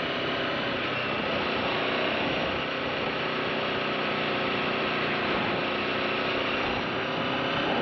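Aprilia RSV4 motorcycle's V4 engine running steadily at an even pitch.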